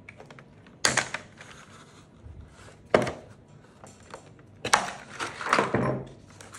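Wire cutters snipping plastic cable ties that hold a plastic crossbow buttstock in a cardboard box, with sharp clicks about a second in and about three seconds in. Near the end the stock knocks and scrapes against the cardboard as it is pulled free.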